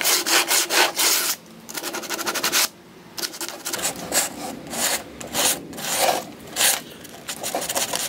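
Coarse sandpaper rubbed by hand in quick back-and-forth strokes along the edge of a chalk-painted wooden side table, wearing through the paint to distress it and bring out the wood underneath. The strokes come in runs of a few a second, with two short pauses.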